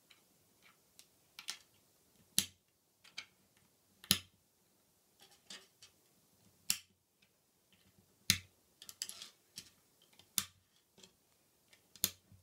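K'NEX plastic connectors being snapped together by hand: a series of sharp plastic clicks, about six loud ones spaced a second and a half to two and a half seconds apart, with lighter taps and clicks from the pieces being handled between them.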